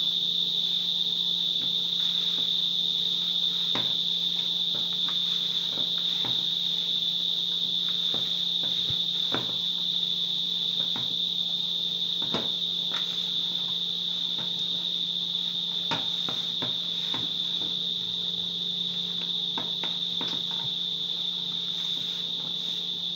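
A loud, steady high-pitched buzz runs throughout. Under it are faint, irregular soft knocks from hands kneading corn dumpling dough in a bowl.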